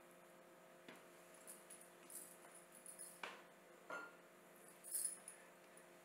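A few faint clicks and light taps at a drinking glass as a lemon slice is fitted onto its rim, over a low steady hum.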